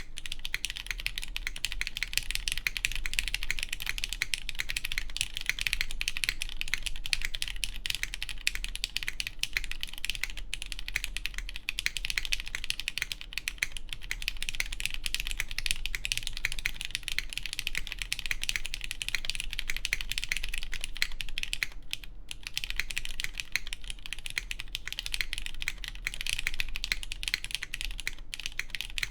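Fast, continuous typing on a plateless Keycult Zero mechanical keyboard with lubed Cherry MX Black clear-top (Nixie) linear switches and GMK keycaps, a dense stream of keystrokes with two brief pauses in the last third.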